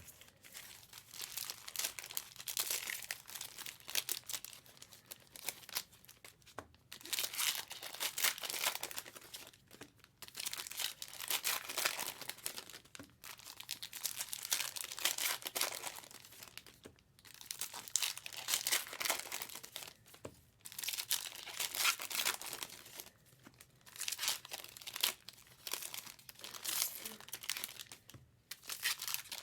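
Trading card pack wrappers being torn open and crinkled, in repeated bouts of crackling with short pauses between them.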